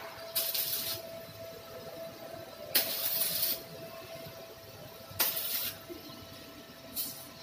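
Electric arc welding with a stick electrode on a metal chair frame: four short bursts of crackling hiss, about half a second to a second each, as the arc is struck and held for tack welds. A steady faint whine runs underneath.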